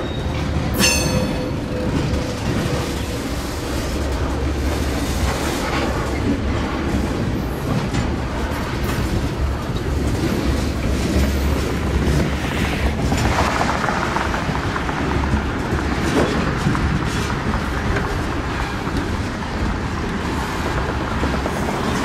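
Freight train's tank cars rolling past at close range: a steady rumble of steel wheels on rail with clicking over the rail joints. A brief high squeal comes about a second in.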